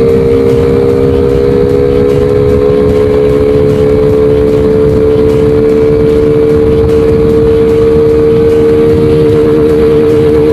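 Honda Wave 110i's single-cylinder four-stroke engine running at a steady speed on the move, with a loud intake sound from an air box whose filter element has been removed and whose box has been drilled.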